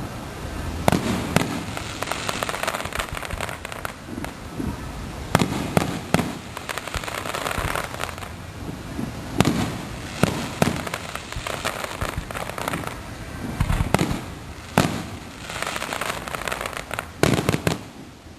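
Aerial fireworks display: shells bursting in a string of sharp booms every second or two, with continuous crackling between them.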